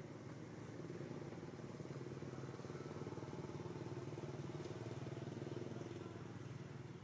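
An engine running steadily as a low drone, growing louder about a second in and easing off near the end.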